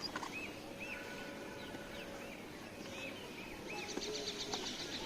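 Birds calling in the background: a string of short, arched chirps repeated every half second or so, joined near the end by a fast chattering series of higher notes.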